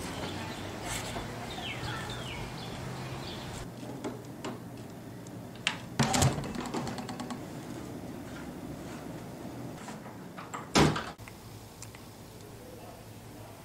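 Wooden door sounds: a knock and rattle about six seconds in, then a louder single bang just before eleven seconds, as of a door being shut. A low steady hum lies under it.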